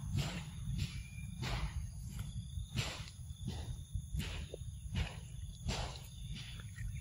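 Rustling and crunching in grass, in short irregular strokes about once or twice a second, over faint insect chirring and a low rumble.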